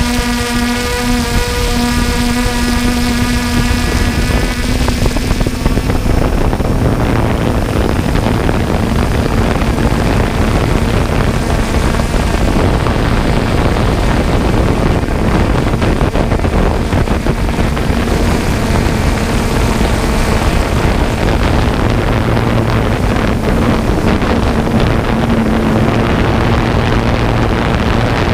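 John Deere harvest machinery running steadily under load. A whine with several overtones fades out about five seconds in, leaving a dense, steady rumble with some wind on the microphone.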